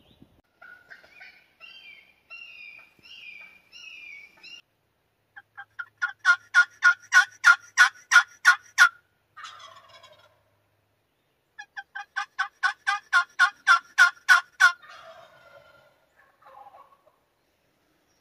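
Wild turkey calling: softer warbling notes at first, then two long runs of loud, rapid yelping notes, about five a second, each run lasting around three seconds.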